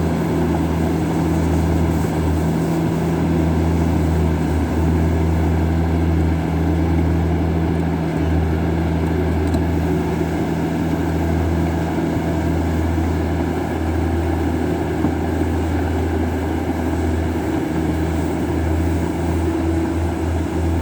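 Heavy construction machinery's engine running steadily, a constant low drone.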